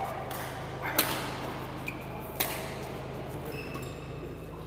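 Badminton rackets striking a shuttlecock in a doubles rally on an indoor court: sharp hits, the two loudest about a second and a half apart. Short high squeaks of shoes on the court floor come in between, over a steady low hum.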